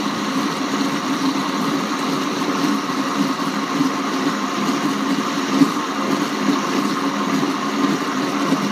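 Vitamix 750 blender motor running steadily at low speed (variable 3), blending potato into hot soup in the container with an even hum.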